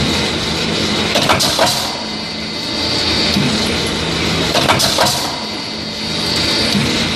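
Cross tee roll forming machine running: a steady motor hum and hiss, broken twice by a quick cluster of metal clacks from its pneumatic tooling stations, about three and a half seconds apart.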